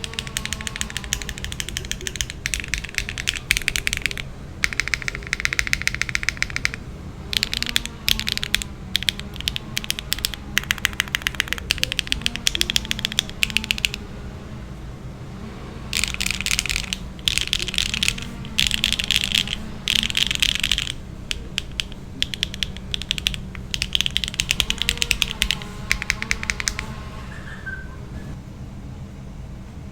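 Fast typing on a mechanical keyboard with HMX Emo switches, a carbon-fibre plate, no foams and PBTfans Klein Blue R2 ABS double-shot keycaps, in bursts of rapid keystrokes. There is a short break about halfway through, and the typing stops near the end. A steady low hum runs underneath.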